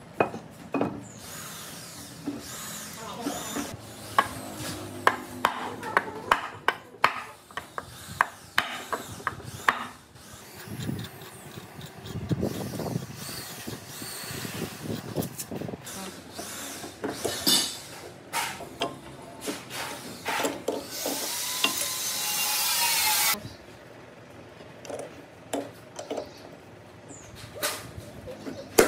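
Metal clinks, taps and scraping as a cast-iron engine flywheel and its hub collar are worked onto the crankshaft and the flywheel nut is tightened with a pipe wrench. A loud rushing noise lasts about two seconds near the end and cuts off suddenly.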